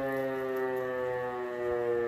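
E57 electric motor siren winding down, its wail sliding slowly lower in pitch as the rotor coasts between blasts of the test alarm.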